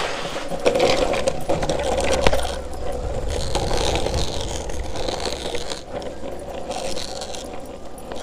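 Longboard wheels rolling over an asphalt path, a steady rumbling scrape with a constant hum, and one sharp click a little over two seconds in. It grows quieter near the end.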